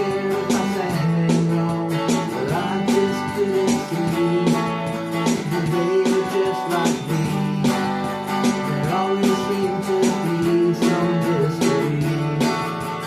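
Instrumental break in a country-style song: a strummed acoustic guitar keeps a steady rhythm while a pitched melody line moves over it.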